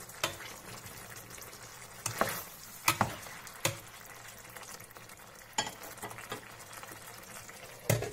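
Oyster mushrooms sizzling and bubbling in their own juices in a stainless frying pan while being stirred with a plastic spatula, which knocks and scrapes against the pan several times. Just before the end, a louder knock as the glass lid goes onto the pan.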